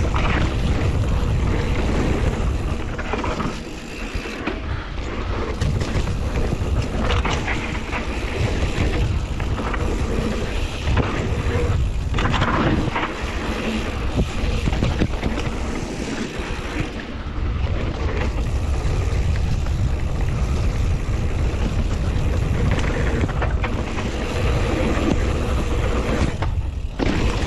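A mountain bike ridden fast down a dirt trail: steady wind buffeting on the camera's microphone, tyre noise on dirt, and frequent short knocks and rattles from the bike over bumps.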